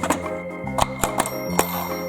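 Music: sustained pitched notes over a changing bass line, with a steady clicking beat.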